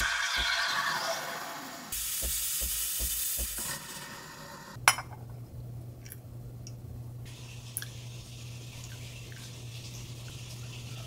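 Espresso machine steam wand hissing as it froths milk in a stainless steel pitcher, the hiss shifting in pitch, breaking off about two seconds in, starting again and stopping near four seconds. After a sharp click, a faint steady low hum with a few light ticks.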